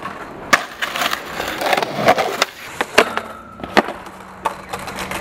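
Skateboard knocking on concrete: about six sharp clacks and slaps as the board hits the ground and ledges during tricks and falls.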